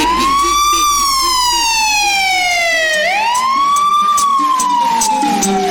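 Siren sound effect in a dance music track: a wailing tone that sweeps up quickly and then glides slowly down, twice, over faint lower notes.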